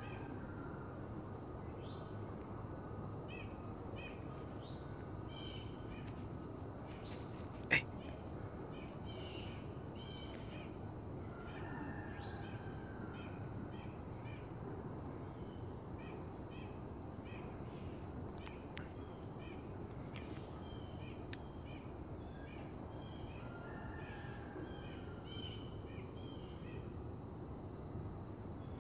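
Woodland ambience: many short bird chirps repeating throughout, with a few longer falling calls, over a steady low background hiss. One sharp click about eight seconds in.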